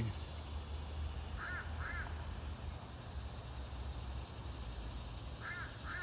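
Crows cawing, two quick caws about a second and a half in and two more near the end, over a steady chorus of insects. The crows are calling at a hawk, which they don't like.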